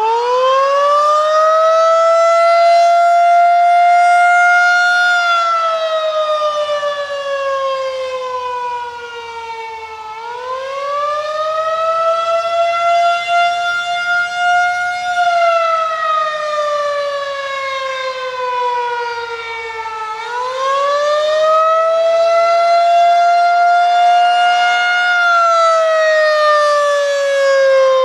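Federal Signal 2001-SRN electromechanical outdoor warning siren sounding the attack signal. Its pitch climbs quickly, holds a few seconds, then slides down, repeating about every ten seconds for three cycles.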